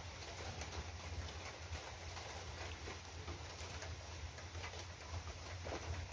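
Close-up eating noises: chewing with many small wet mouth clicks, then swallowing as he drinks from a glass soda bottle in the second half. A steady low hum runs underneath.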